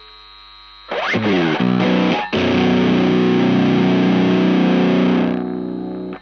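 Baritone electric guitar played through a Galactic Fuzz pedal, heavily fuzzed. After a short pause it plays a quick upward slide and a few notes, then a big chord rung out for about three seconds before it fades.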